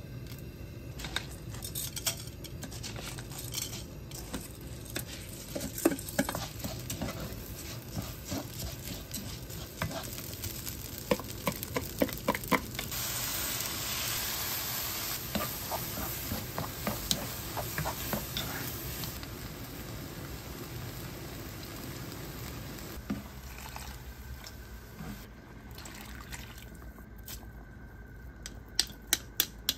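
A wooden spoon stirs and knocks against a nonstick wok while rice and chopped vegetables fry in oil. About 13 s in, broth is poured into the hot pan and a louder hiss of sizzling runs for several seconds. It then settles to a quieter steady simmer, with a few sharp taps near the end.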